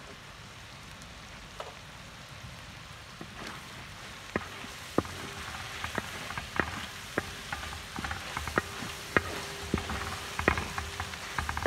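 Chicken and prawn pieces sizzling in a large metal pan. From about four seconds in, a spatula stirs them, scraping and knocking against the pan in quick, irregular strokes.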